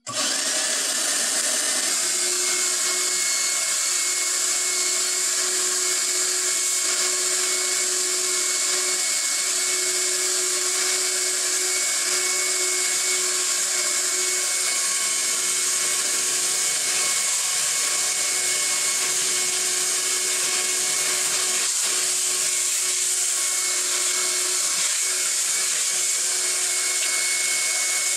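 Shop vacuum switched on abruptly and running steadily, its motor whining as it draws sawdust through a hose into a homemade bucket cyclone dust separator.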